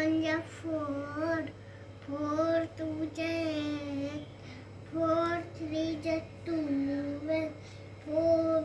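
A young child chanting in a sing-song voice, in short phrases of held, wavering notes with brief pauses between them, the way a times table is recited aloud.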